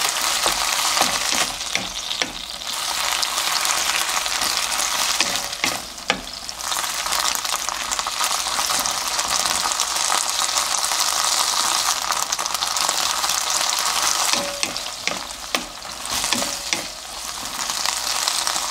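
Shishito peppers sizzling in a frying pan as a soy sauce and water glaze reduces over low heat, with a wooden spatula stirring and scraping through them and a few light knocks against the pan.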